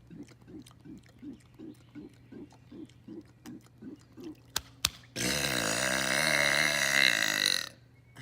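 A man's long, loud burp of about two and a half seconds, its pitch dipping and then rising, which comes just past the middle. Before it there is a run of soft low pulses at about three a second, then two sharp clicks.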